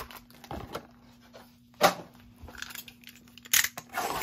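Cardboard trading-card boxes and foil card packs being handled by gloved hands: scattered rustles and taps, with a sharp knock about two seconds in and a quick cluster of taps near the end.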